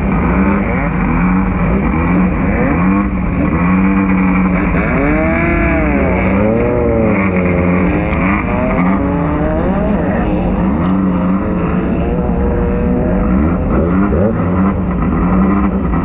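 Class 9 off-road race buggy's engine running hard, heard from inside the car. About midway its pitch swings up and down several times as the revs rise and fall.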